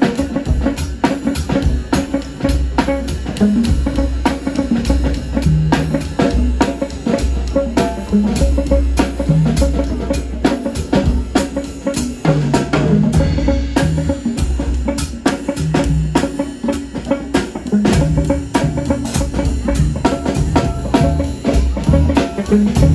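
Live band playing: a drum kit keeps a steady beat, with bass guitar and electric guitar underneath.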